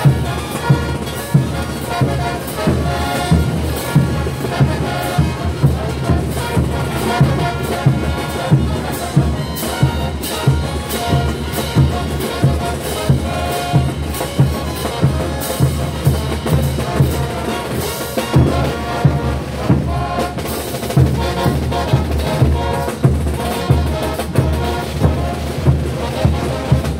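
Bolivian brass band playing a morenada: trumpets, trombones and tubas over bass drums, snare drums and crash cymbals, with a steady, evenly spaced beat of drum-and-cymbal hits.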